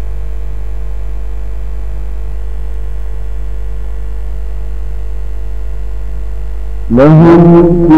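Steady electrical mains hum with faint steady tones above it. About seven seconds in, a male voice starts loudly in melodic, sustained Quran recitation.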